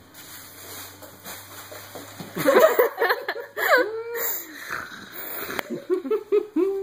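Tissue paper crinkling and rustling as a kitten moves underneath it, joined about two and a half seconds in by a person's laughter in quick repeated bursts, which comes again near the end.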